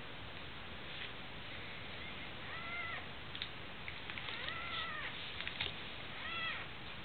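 A cat meows three times, each call rising and then falling in pitch, the middle one the longest. A few faint clicks and rustles come between the calls.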